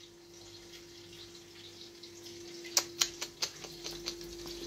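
Faint steady hum, with a quick run of five or six light clinks about three seconds in: a metal fork knocking against a dish.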